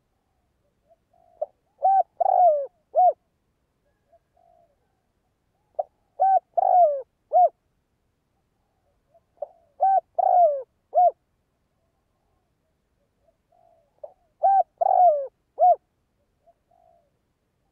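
A male spotted dove cooing its song, kept as a decoy to draw and provoke wild doves. Four phrases come about every four seconds, each a faint lead-in note and then three coos, the middle one longer and falling in pitch.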